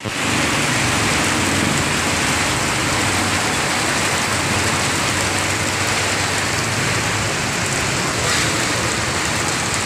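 Heavy rain pouring onto a flooded road, a loud steady hiss, with the low run of vehicles passing through the water underneath for most of it.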